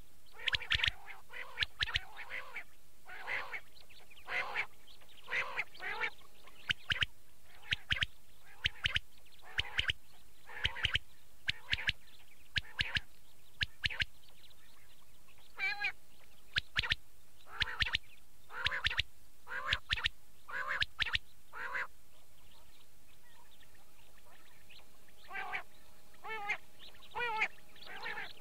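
Quail calling over and over, short sharp calls in quick runs, with a pause of a few seconds about two-thirds of the way through; a recording of the kind played to lure quail for hunting.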